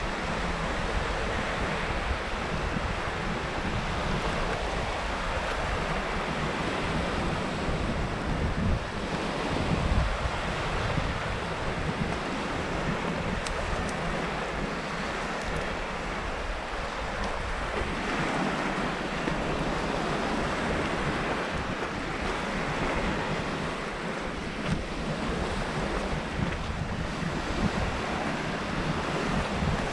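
Baltic Sea surf washing steadily onto a sand-and-pebble shore, with gusts of wind buffeting the microphone.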